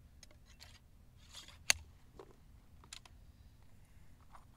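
Handling noises of a Lorenz rifle-musket being loaded: a few light clicks and taps from the ramrod and lock, with one sharp click just under two seconds in and a smaller one about a second later.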